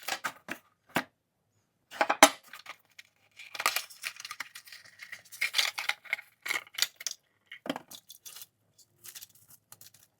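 Packaging being handled and torn, with irregular rustling and sharp clicks, and a few light clinks of small metal hardware.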